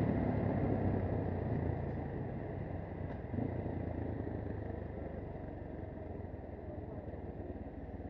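AKT 250 Adventour motorcycle's single-cylinder engine running at low speed, gradually getting quieter as the bike slows.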